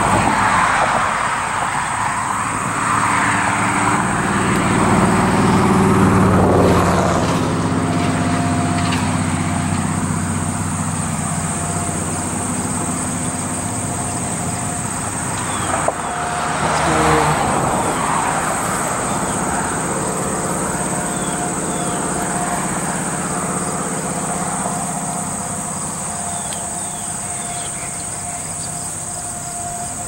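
Road traffic: vehicles passing on a nearby road, swelling loudest about six and seventeen seconds in, with a steady engine hum between them and a few bird chirps.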